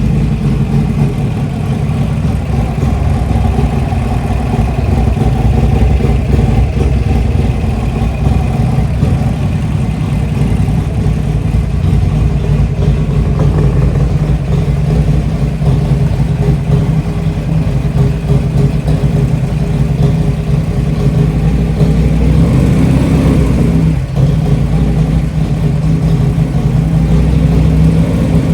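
Rebuilt Harley-Davidson Twin Cam V-twin engine of a bagger running steadily, with a short dip in level about 24 seconds in.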